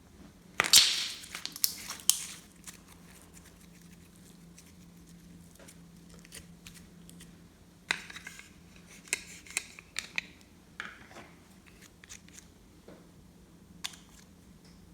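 Slime being handled and mixed, making crackling, crunchy squelches in two spells, one about a second in and another around eight to ten seconds in, with scattered single clicks and pops in between.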